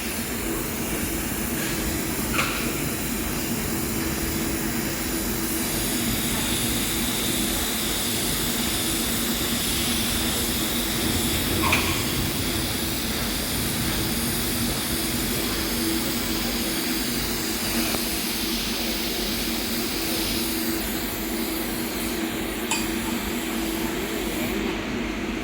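Steady hiss and hum of TIG welding on stainless steel, with a few faint clicks; the high hiss drops away near the end.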